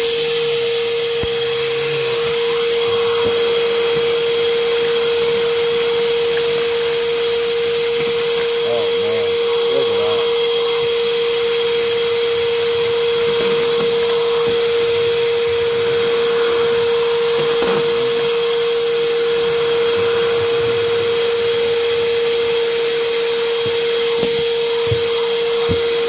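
Ridgid 18V cordless 9-gallon NXT wet/dry shop vac running at full speed, a steady high whine over a loud rush of air as its floor nozzle on an extension wand sucks up small debris.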